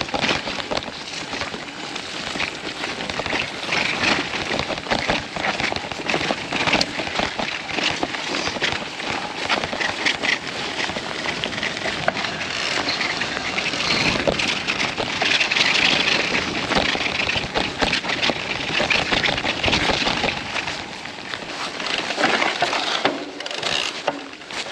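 Mountain bike rolling down a rough, muddy trail: a continuous crackle and rattle of tyres over mud and stones and of the bike shaking, heard from a camera on the rider.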